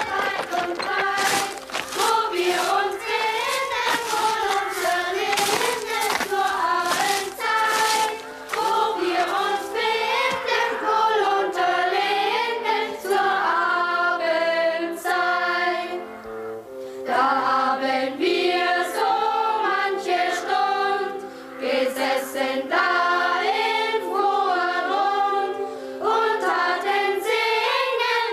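A choir singing a song, with held accompanying notes underneath; the singing pauses briefly a few times between phrases.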